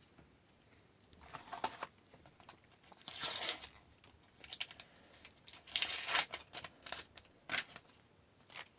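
Paper sticker packs being torn open and handled: a string of short ripping and crinkling sounds, the loudest about three seconds in.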